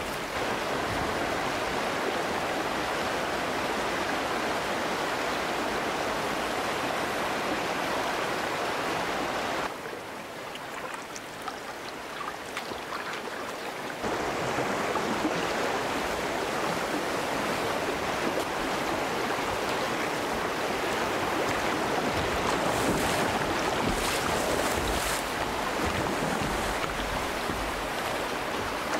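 Rushing white water of a river rapid, a steady loud rush, dropping quieter for about four seconds near the middle.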